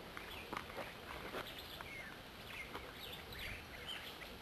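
Faint bird chirps, many short high calls scattered through, over a low background noise, with a few light clicks.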